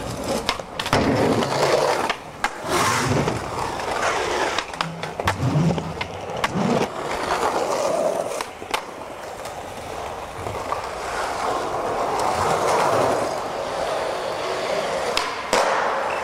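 Skateboard wheels rolling over concrete, broken by several sharp clacks of the board popping and landing.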